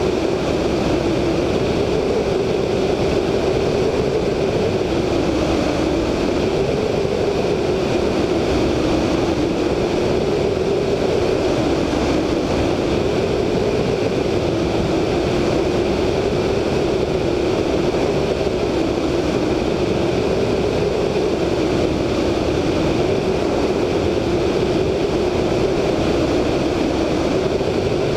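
VL Viima II biplane's Siemens-Halske Sh 14A seven-cylinder radial engine and propeller droning steadily in flight, the drone wavering slowly up and down in pitch every few seconds. Wind rushes over the wingtip-mounted microphone.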